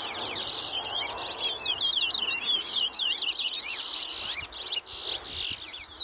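Caged towa-towa seed finch singing a fast, continuous twittering song of quick looping whistled notes, the song counted in a bird-race singing contest.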